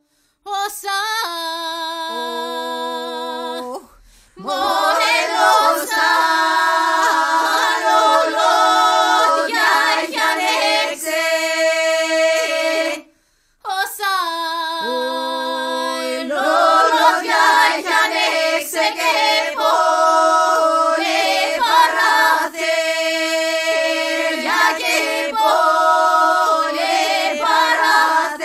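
A choir of women's voices singing a cappella in polyphonic folk style, with one voice holding a steady low note beneath the moving upper parts. A few voices open the passage and the full choir comes in about four and a half seconds in. The singing breaks off briefly about 13 seconds in, then resumes.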